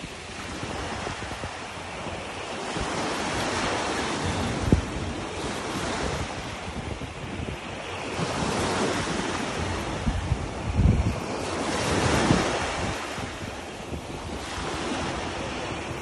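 Small surf waves washing up the beach and draining back, the wash swelling and fading every few seconds, with wind rumbling on the microphone in a few gusts.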